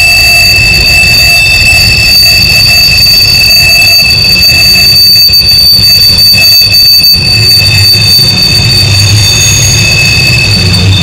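Freight cars rolling around a tight curve, their wheel flanges squealing against the rails in several high, steady pitches over a low rumble of the train.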